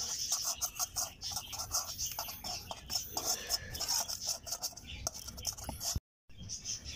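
Metal spoon scraping and clinking against a stainless steel pan lined with butter paper, in quick repeated strokes as oil is spread over the paper to grease it. The sound breaks off for a moment near the end.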